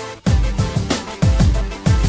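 Electronic background music with a steady beat of deep, downward-sliding kick drums and cymbal hits, with a brief drop just after the start.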